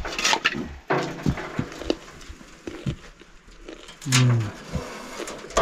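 Irregular light knocks and taps, with a brief low pitched sound about four seconds in.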